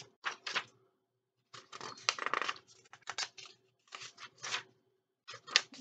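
Paper rustling in about five short bursts as the pages of a hardcover book are turned and handled, with brief pauses between them.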